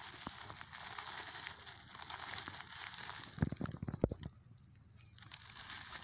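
Crumpled paper and plastic wrappers rustling and crackling as they are gathered up by hand, with a burst of louder crunches and thumps about three and a half seconds in.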